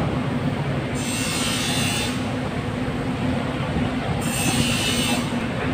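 Steady rumble and hum of machinery running, with swells of hissing about a second long, one near the start and one about four seconds in.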